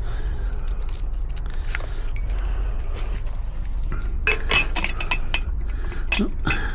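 Steel parts of a garage door defender clinking and knocking as they are handled and fitted, with a burst of bright metallic clinks and a short ring about two-thirds of the way in, over a steady low rumble.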